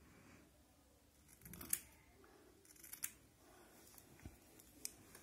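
Hair-cutting scissors snipping through strands of hair, a few crisp snips with the loudest a little under two seconds in.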